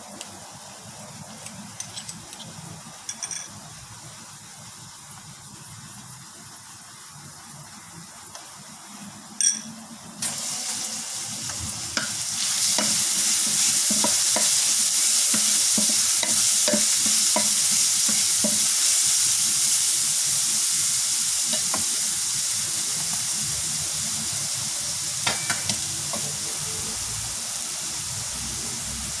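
Shredded ginger and chopped aromatics frying in hot oil in a stainless pan, stirred and scraped with a wooden spatula. After a quiet stretch and a sharp knock, a loud sizzle starts about a third of the way in and slowly eases, with light scrapes and taps from the spatula.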